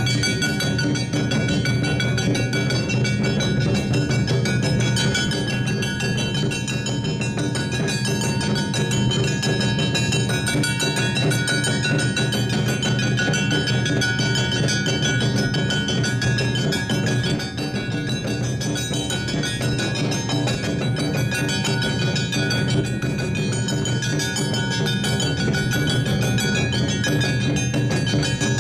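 Live Awa odori festival band music: clanging hand gongs and drums keep a steady, driving beat, with sustained high tones held over it.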